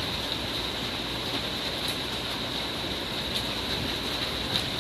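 Heavy thunderstorm downpour: a steady hiss of rain, with a few brief sharp ticks of drops striking close by.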